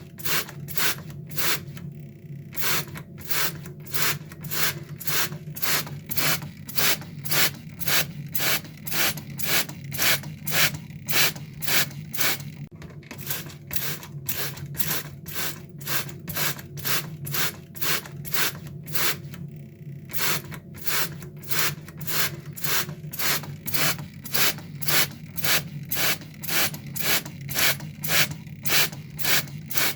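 Water spray squirting in quick repeated spritzes, about two a second, with a few brief pauses, over a faint steady hum.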